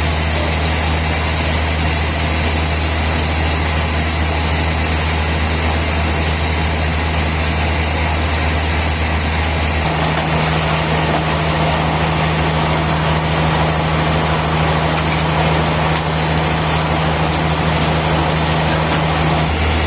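Sawmill machinery running steadily. Its low hum steps up to a higher pitch about halfway through.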